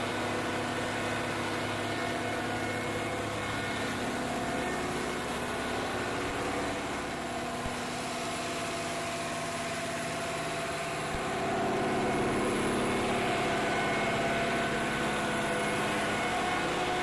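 Concrete mixer truck's diesel engine running steadily, growing louder and changing pitch about eleven seconds in.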